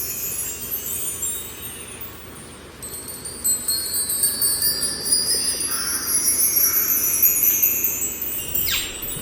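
High, shimmering chime-like tinkling, many thin tones overlapping and slowly sliding, with a few sharp clicks near the end.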